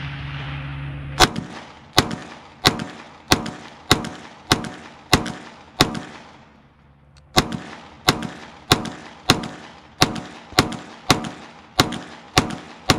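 Glock 45 9mm pistol firing about eighteen shots in quick, even succession, roughly one every two-thirds of a second. Each shot is a sharp crack with a short echoing tail, and there is a pause of about a second and a half midway.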